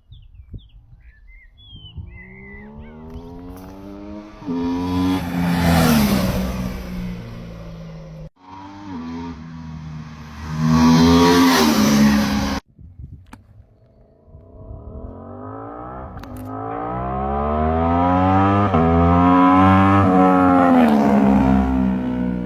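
Aprilia RS 660 parallel-twin sportbike accelerating past three times, its exhaust note climbing in pitch on the approach and dropping sharply as it goes by, the passes split by abrupt cuts. The passes compare the stock exhaust with an aftermarket Dominator exhaust.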